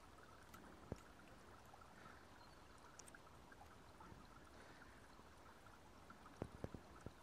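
Near silence: faint, even background hiss, with a single light click about a second in and a few small clicks near the end.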